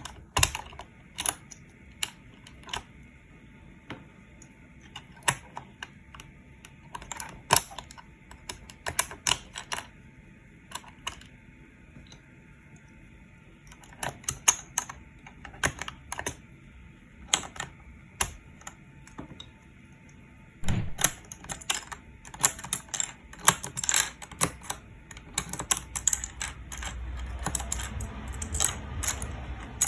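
Mechanical keyboard keys and keycaps clicking, irregular at first and coming thick and fast from about two-thirds in, with a low rumble of handling near the end.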